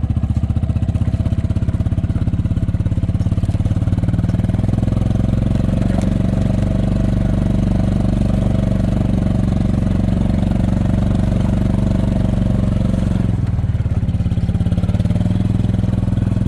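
A vehicle's engine running steadily close by, with a fast, even firing pulse. Its note shifts down briefly about thirteen seconds in, then picks up again.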